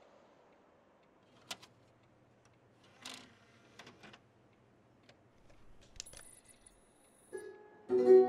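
Quiet plastic clicks and rattles of a disc being laid into a DVD player's tray and the tray sliding shut, followed about six seconds in by a brief thin high whine. Near the end a strummed guitar chord rings out as music starts.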